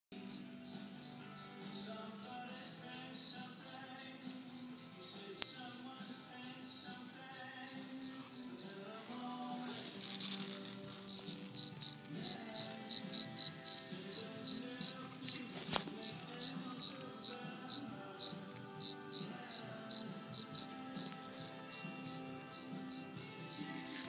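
Cricket chirping close by: loud, high, evenly spaced beep-like chirps, about three a second. It stops for about two seconds around nine seconds in, then starts again.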